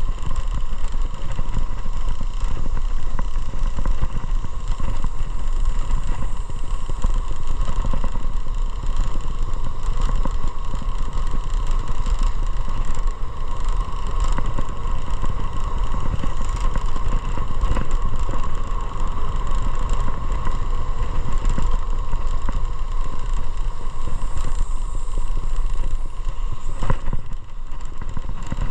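Motorcycle under way at a steady pace: the engine runs continuously with road and wind noise and a steady droning tone, with no change in speed.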